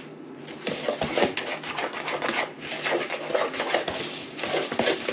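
Brownie batter being stirred by hand in a mixing bowl, the utensil scraping and knocking against the bowl in quick, irregular strokes that start after a short lull.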